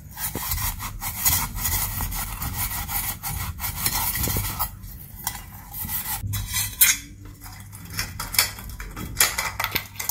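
Abrasive scrub pad scrubbing over a stainless steel idli plate, rubbing off hard-water scale with cleaning liquid on the dry metal. A continuous scraping for the first four or five seconds, then shorter, broken strokes with a few sharp clinks of the metal plate.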